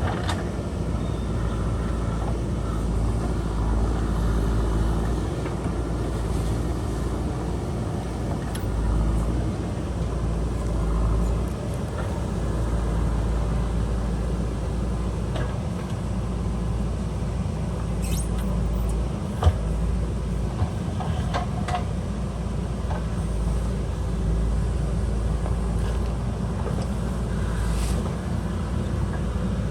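JCB backhoe loader's diesel engine running steadily under load while it digs, with a single sharp knock about two-thirds of the way through.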